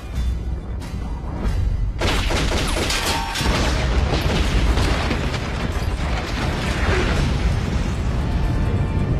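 Movie action soundtrack: a heavy boom about two seconds in, followed by a dense, loud rumble, with dramatic score music underneath.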